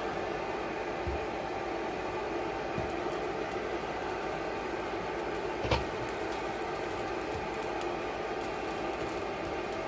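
Steady whirring hum of a countertop electric burner's cooling fan, running under a pan on low heat, with one short click a little past halfway.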